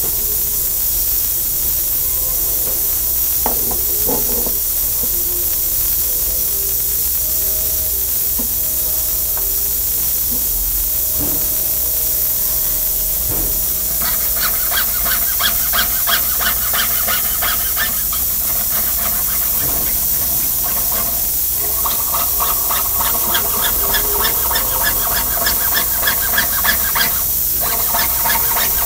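Jeweler's piercing saw cutting out a metal monogram pendant on a bench pin: a regular run of quick sawing strokes, about four a second, starting about halfway in and pausing briefly a few times, over a steady background hiss.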